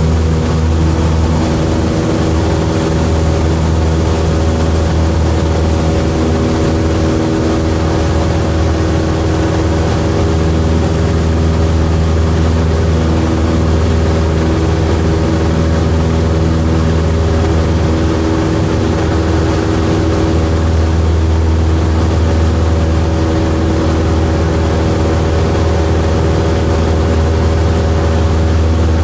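Light aircraft's piston engine and propeller droning steadily in flight.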